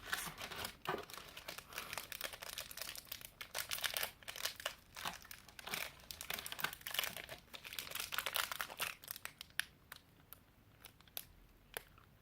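Candy bar wrapper crinkling and tearing as a Wonder Bar is unwrapped: dense crackling for about nine seconds, then only a few scattered crackles near the end.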